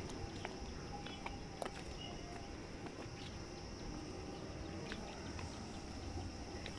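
Faint, steady high-pitched insect drone, with a few soft ticks scattered through it.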